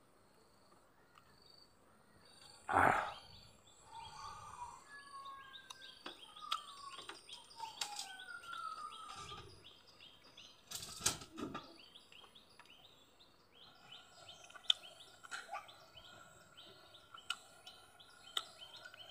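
Small birds chirping in quick repeated notes, with a few gliding whistled calls among them. Two short, louder noises break in about three and eleven seconds in, the first the loudest thing heard.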